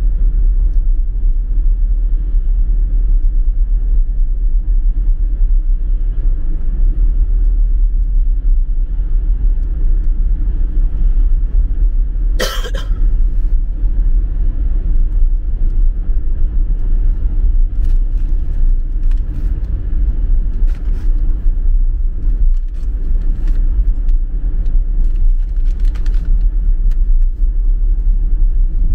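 Car driving along a road: a steady low rumble of road and engine noise. About twelve seconds in comes a single short, sharp cough.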